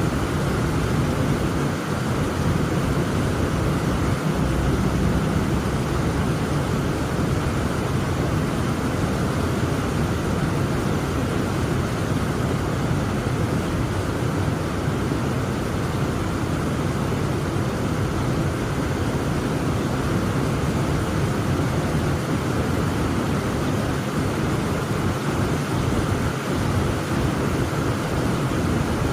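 Heavy rain falling steadily: a dense, unbroken rush with most of its weight low down.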